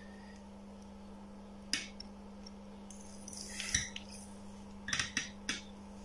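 Small sharp clicks and a brief rustle of oscilloscope probe tips and a clip lead being hooked onto a circuit board's pins: one click about two seconds in, then a quick cluster of clicks near the end, over a steady low hum.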